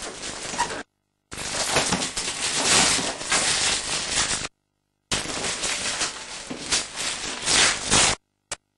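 Wrapping paper crinkling and tearing as a large present is unwrapped by hand, a dense crackle of rustles and rips. The sound drops out completely three times for about half a second each.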